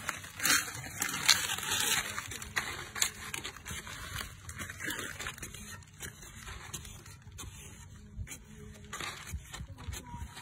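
A metal blade digging and scraping into loose soil in irregular strokes, louder and busier in the first couple of seconds.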